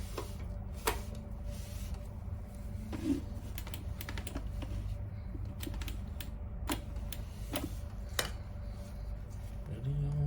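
Scattered sharp clicks and light taps, like small hard objects being handled, over a steady low hum.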